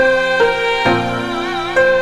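Slow instrumental music: held melody notes over a lower line, changing every half second or so, with one note wavering in pitch about a second in.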